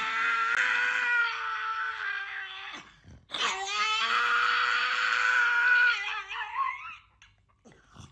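Pug howling: two long, steady howls, the second breaking up and fading near the end.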